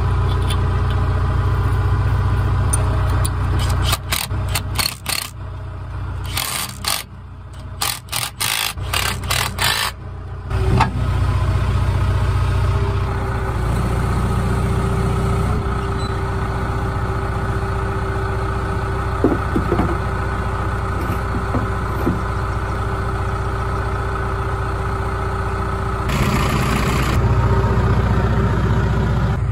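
Loader tractor's engine running steadily with a low rumble. From about four to ten seconds in, the rumble drops away under a run of irregular knocks and rattles, then the engine sound picks up again and runs on.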